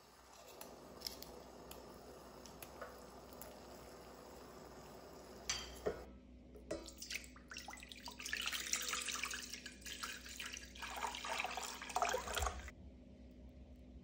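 Water poured in a stream into an empty stainless steel pot, splashing loudly for about five seconds from halfway through, then stopping abruptly. Before the pour there is only a faint hiss with a few small clicks.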